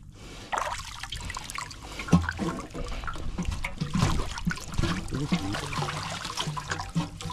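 Shallow water sloshing and splashing unevenly, with sudden splashes of wading and hands groping through weedy water.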